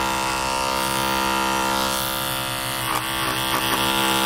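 Electric hair clippers running with a steady buzz, their blade cutting through thick, long hair.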